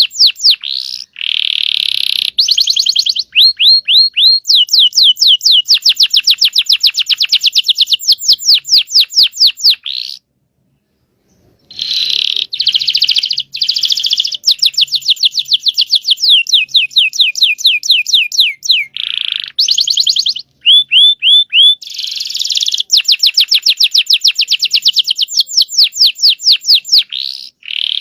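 Domestic canary singing long rolling trills: fast runs of repeated high notes in phrase after phrase, broken by a pause of about a second and a half near the middle.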